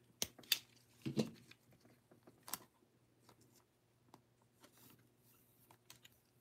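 Faint handling of a thin plastic card sleeve: a few sharp clicks and snips in the first couple of seconds as its corner is cut with a utility knife, then soft rustles and ticks as a trading card is slid into it.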